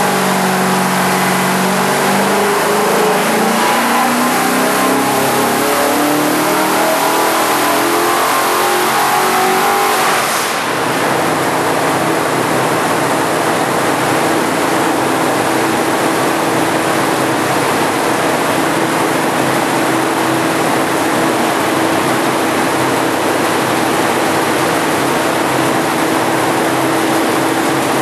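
Ford 390 FE V8 stroked to 445 cubic inches, on a full-throttle dyno pull, rising steadily in pitch for about ten seconds. About ten seconds in it is cut back abruptly and then runs steadily at a lower speed.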